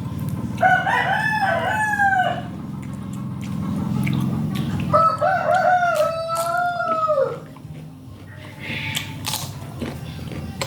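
A rooster crowing twice, each crow a long call of a couple of seconds, over a steady low hum.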